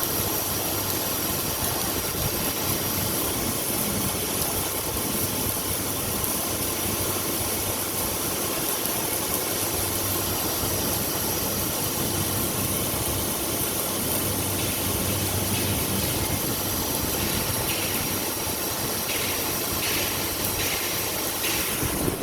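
Steady machine drone with a low hum and a high hiss. Several short, rasping bursts come about once a second in the last few seconds.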